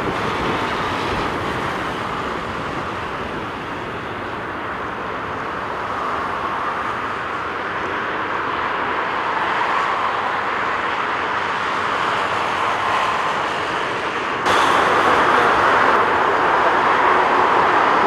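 Airbus A321's IAE V2500 jet engines at takeoff thrust: a steady rushing jet noise that swells slowly as the airliner climbs out. Near the end it jumps abruptly to louder, brighter jet noise from a Boeing 737-8 on the ground.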